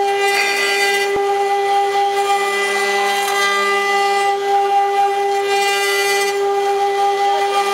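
6090A CNC router's spindle running with a steady high-pitched whine, while the bit carves wood in recurring swells of cutting noise. A brief click sounds about a second in.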